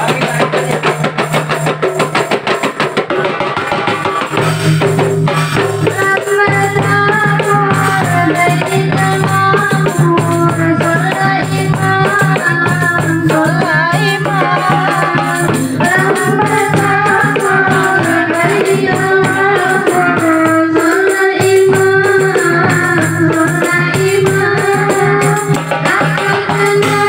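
Marawis ensemble playing: hand drums and jingling frame drums keep a steady, busy rhythm, and female vocals come in about six seconds in and carry a melody over the percussion.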